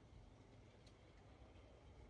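Near silence: faint room tone with a low hum and one soft tick.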